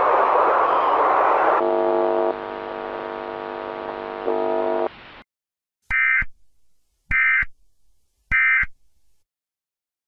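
A loud rushing noise gives way to a harsh buzzing tone about a second and a half in, which cuts off suddenly around five seconds. Then come three short electronic chirps about a second apart: the Emergency Alert System's digital data bursts that mark the end of the alert message.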